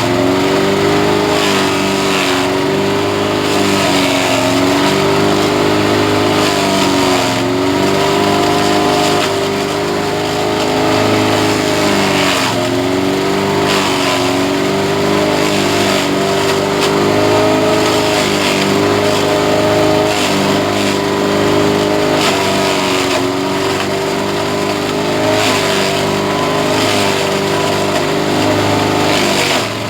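Grass chopper machine's engine running steadily, its pitch sagging and recovering every couple of seconds, with occasional short bursts of rushing noise.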